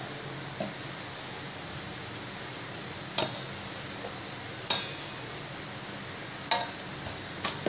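Stainless-steel plate clinking under chapati rolling: five sharp, short metallic clinks at uneven intervals, the loudest about halfway through, as the wooden rolling pin and hands knock and shift the plate while the dough is rolled and turned. A steady low hum runs underneath.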